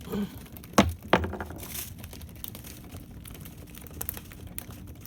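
Two sharp knocks about a second in, followed by a short rustle and scattered small clicks.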